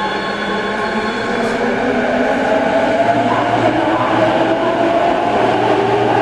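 Rinkai Line 70-000 series electric train heard from inside the car in a tunnel, pulling away from a station: the inverter-driven traction motors whine in several tones that shift in pitch over a steady rumble of wheels on rail, growing louder in the first few seconds.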